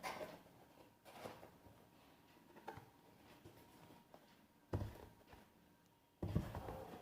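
Handling noises from the spanners and their packaging: a few soft knocks and rustles, with a sharper knock about five seconds in and the loudest knock about six seconds in.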